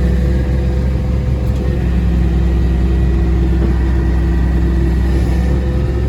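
Massey Ferguson 1105 tractor's six-cylinder diesel engine running steadily, with a faint higher tone that comes and goes above it.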